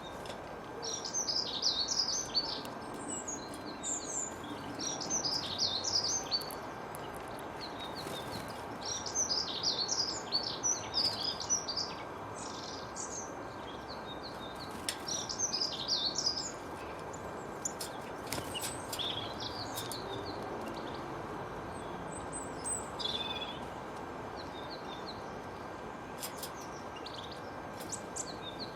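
Songbirds singing: repeated bursts of quick, high twittering phrases, each a second or two long, coming every few seconds and thinning out in the second half, over a steady background hiss.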